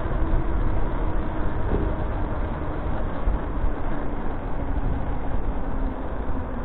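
Wind buffeting the microphone of a moving bicycle, a steady low rumble mixed with tyre and street noise, with a faint steady hum underneath.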